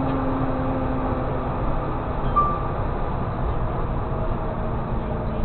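Tow truck's engine running and road rumble heard inside the cab as it turns slowly, a steady low drone. A short, high beep sounds once about two seconds in.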